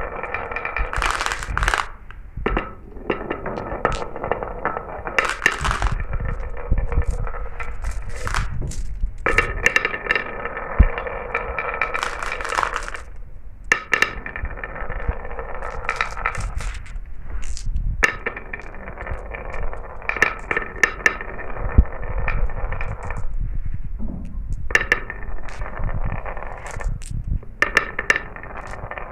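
Glass marbles running down a marble run track: long stretches of steady rolling rumble, broken every few seconds by short pauses and by frequent sharp clicks and clinks as the marbles knock against the track and each other.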